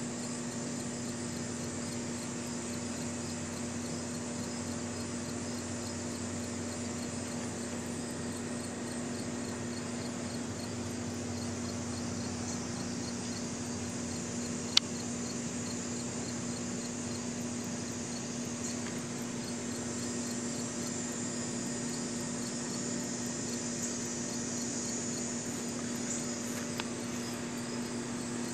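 Steady chorus of insects trilling, with a faint regular pulsing in the high band and a low steady hum underneath. A single sharp click about fifteen seconds in.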